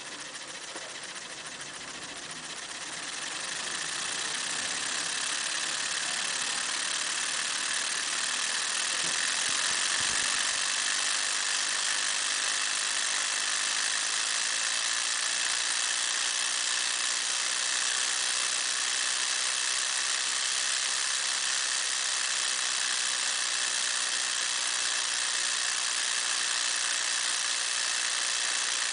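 Transparent two-cylinder opposed micro air engine running on compressed air, at about 1000 rpm: a steady airy hiss of its exhaust with a faint mechanical hum. It builds up over the first few seconds, then holds steady.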